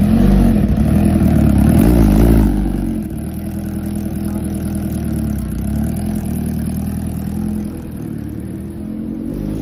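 Kawasaki inline-four superbike engine on its stock exhaust, blipped a few times during the first couple of seconds. It then settles to a steady idle, and the revs rise again near the end.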